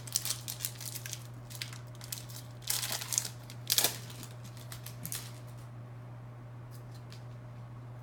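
A trading-card pack wrapper being crinkled and torn open by hand, rustling for the first five seconds or so with the loudest rips about three to four seconds in, then only a few faint clicks.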